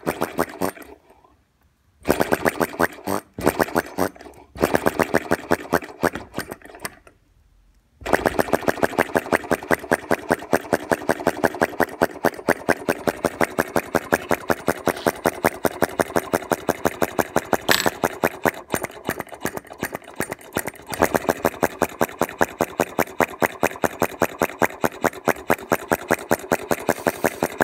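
Duclos fire-eater (flame-sucker) model engine running, with a fast, even rhythm of sharp ticks from its cycle as the flame is drawn into the cylinder. The ticking breaks off twice in the first eight seconds, then runs on steadily.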